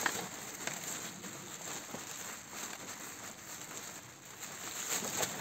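Black plastic rubbish bag rustling and crinkling as its neck is twisted and tied, a faint irregular crackle.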